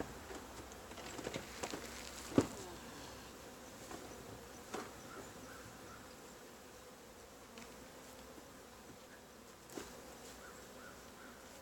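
Honeybees buzzing in a low, steady hum around an open hive, with a few light knocks and clicks of hive gear, the loudest a sharp knock about two and a half seconds in.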